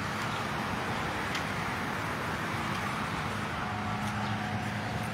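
Steady road traffic noise. A vehicle's low engine hum comes in about three and a half seconds in and holds steady.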